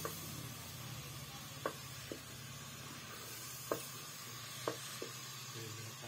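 A metal ladle stirring a steaming pot of broth on a wood fire, clinking sharply against the metal pot about six times, over a steady hiss.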